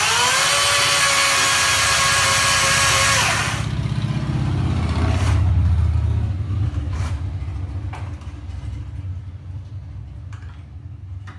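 Chainsaw engine revving up to high speed, held at full throttle for about three seconds, then released back to a low idle that slowly grows quieter. A few sharp clicks come during the idle.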